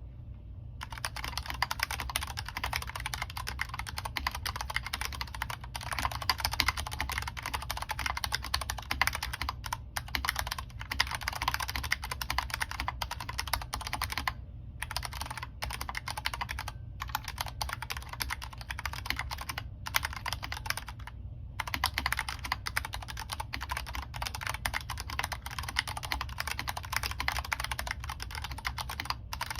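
Vortex Race 3 mechanical keyboard being typed on, a fast, continuous stream of key clacks broken by a few short pauses. A steady low hum runs underneath.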